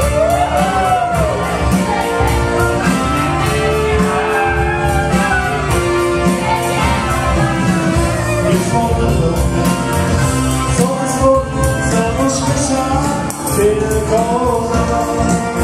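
Wedding band playing an upbeat dance song with a steady fast beat and sung vocals.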